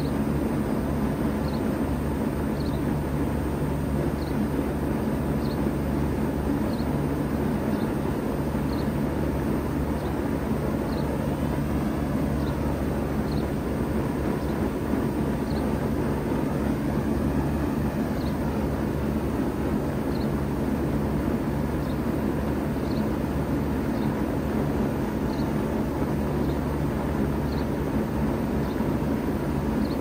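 1995 Bard 3-ton wall-hung heat pump running steadily in cooling mode, a constant mechanical hum with a steady rush of air over it.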